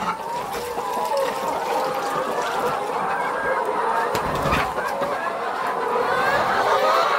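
A flock of laying hens clucking: many short, overlapping calls at a steady level.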